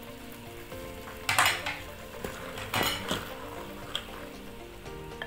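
A wooden spoon stirring soaked beans and maize into a tomato sauce in an electric pressure cooker's inner pot: wet scraping, rattling strokes, loudest about a second and a half in and again near three seconds, over a faint sizzle.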